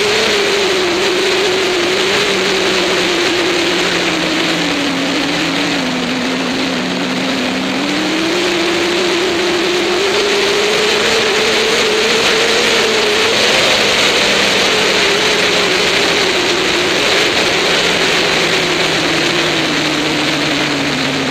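Motorcycle engine running at road speed under heavy wind and road noise, its pitch sinking and rising again as the rider eases off and opens the throttle through the bends.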